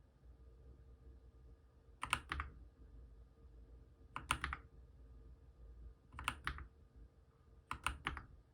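Keys of a Monstargear MK308 mechanical keyboard with fully lubed optical switches being typed on: four short bursts of a few keystrokes each, about two seconds apart.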